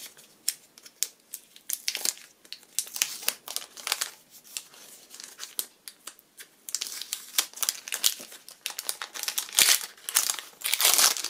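Tracing paper crinkling and rustling as it is unwrapped from a small tin by hand, with paper tape peeling away; irregular crackles, busiest and loudest near the end.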